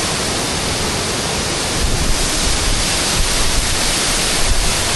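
An 18-metre waterfall heard up close: a loud, dense, steady rush of falling water, with low rumbling pulses joining in from about two seconds in.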